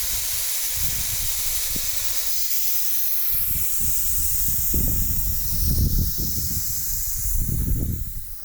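Air hissing steadily out of a car tyre's valve as the tyre is let down toward about 20 psi for off-road driving, over an uneven low rumble.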